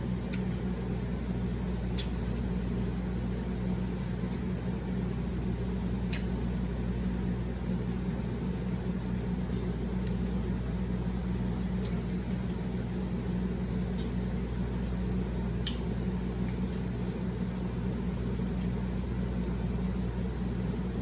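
A steady low mechanical hum, with a few sharp clicks of chewing and mouth sounds of eating, about four over the stretch.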